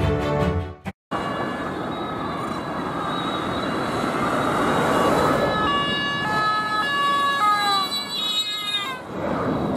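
Emergency vehicles' two-tone sirens sounding over steady road noise, the alternating tones of more than one siren overlapping and growing clearer from about halfway, then dropping in pitch as they pass near the end.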